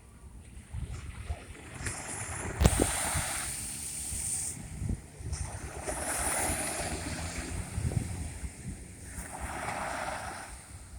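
Sea waves breaking and washing in, three surges of hiss a few seconds apart, the first opening with a sharp crack. Wind buffets the microphone with a low rumble throughout.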